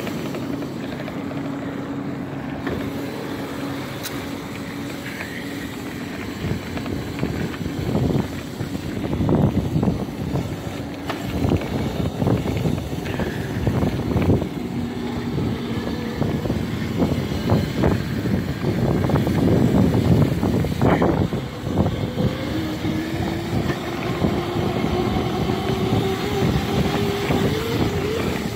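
Razor MX650 electric dirt bike under way: the electric motor's whine with chain and tyre noise over gravel, and many rattles and knocks from bumps in the middle stretch. Near the end the whine rises steadily in pitch as the bike speeds up.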